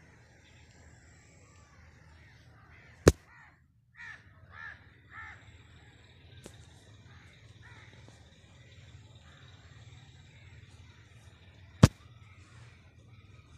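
Three short bird calls in quick succession about four seconds in, with fainter calls afterwards. Two sharp clicks, the loudest sounds, come just before the calls and near the end.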